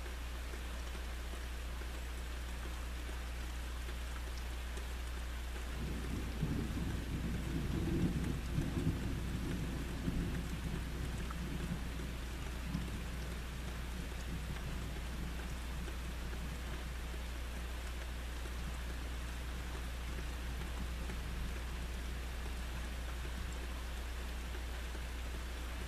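Steady rain falling, with a low rumble of thunder starting about six seconds in, loudest a couple of seconds later and dying away over several seconds.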